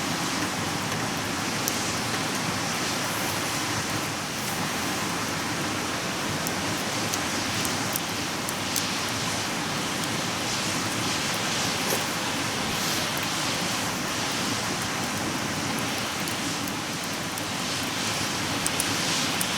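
Wood campfire burning, crackling with scattered sharp pops over a steady hiss.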